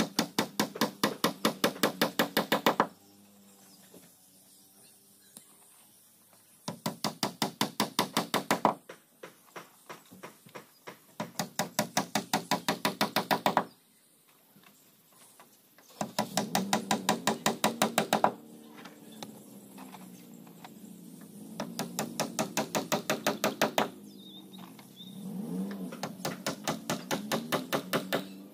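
Hammer striking the planked wooden hull of a boat under construction, in six quick runs of about six blows a second, each run lasting two to three seconds with short pauses between.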